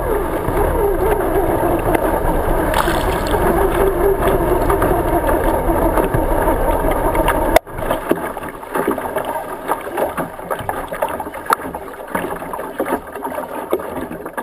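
OSY-400 racing boat's two-stroke outboard engine idling with a wavering pitch, then cutting off abruptly about halfway through. After it stops, water laps and splashes against the hull.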